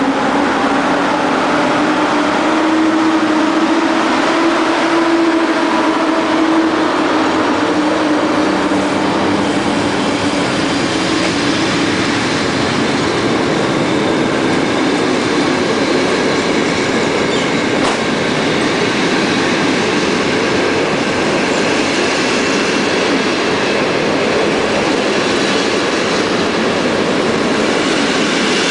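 EU07 electric locomotive pulling out and passing close, its hum rising in pitch over the first few seconds and fading as it draws away. Passenger carriages then roll past steadily at low speed.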